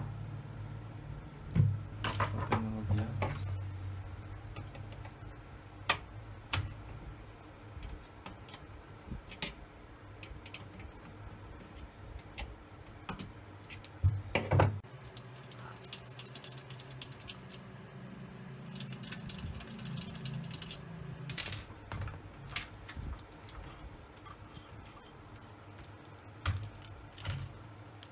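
Scattered clicks, taps and light metallic clatter of an LCD monitor's sheet-metal frame, logic-board shield and circuit board being handled and lifted apart, with a short run of knocks about two seconds in and another midway through.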